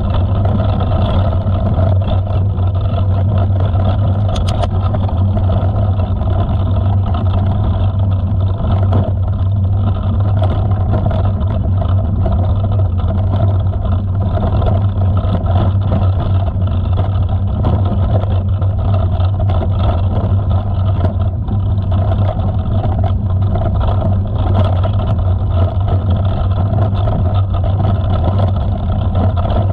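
Loud, steady low drone of riding along a rough dirt trail, with small rattles and ticks scattered through it.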